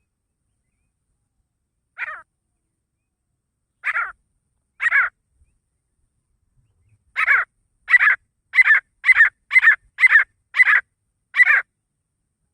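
Grey francolin (desi teetar) calling: short harsh notes, three spaced out at first, then a quicker run of eight at about two a second.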